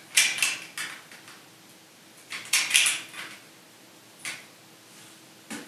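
Hard plastic LEGO pieces clicking and rattling as the starfighter's storage compartment is pressed shut, in three short bunches of clicks: at the start, near the middle, and a single one towards the end.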